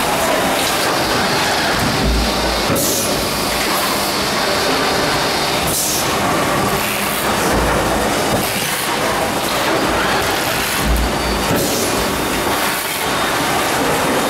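MIR 540-tonne injection moulding press running: a loud, steady machine din, with short hissing bursts about three and six seconds in.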